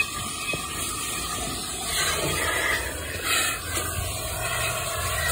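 Vacuum hose with a clear plastic nozzle sucking at a car's floor carpet, a steady rushing hiss that wavers a little as the nozzle moves.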